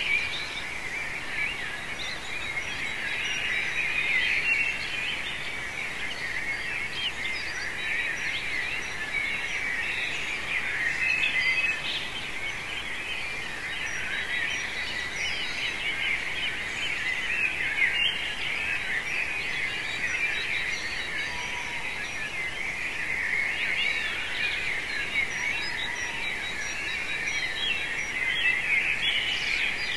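Dawn chorus: many birds singing at once, a dense overlapping mass of chirps, trills and whistles over a steady low background hiss.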